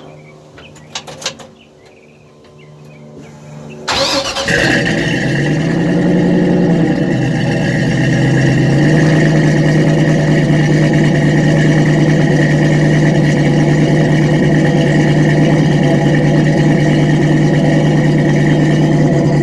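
A few clicks, then about four seconds in the truck's 5.3-litre LS V8 fires abruptly on a cold start and runs out through a Flowmaster 40 series exhaust. The idle flares up, drops back, then settles into a steady, loud cold idle.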